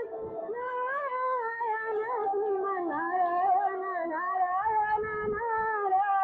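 High-pitched female voice singing a devotional song, a wavering melody held in long, sliding notes.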